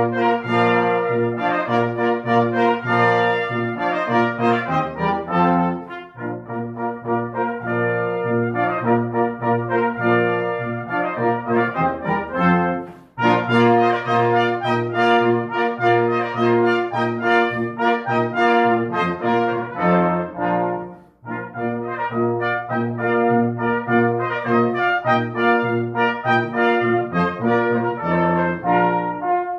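Brass quintet of two trumpets, horn, trombone and tuba playing full sustained chords, the phrases broken by short breaths about 6, 13 and 21 seconds in.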